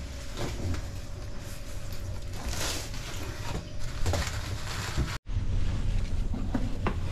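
Cardboard box being opened and unpacked by hand: card flaps and sheets scraping and rustling, with shredded paper packing and bubble wrap being shifted and a few light knocks.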